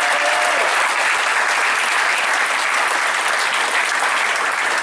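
A roomful of guests applauding steadily.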